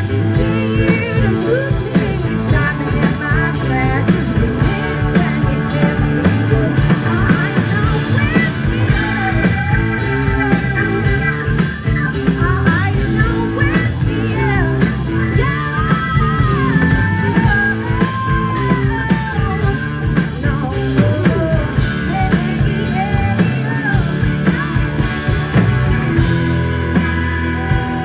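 Live blues-rock band playing: electric guitar, keyboards and drums through the stage PA, with pitch-bending lead lines over the band.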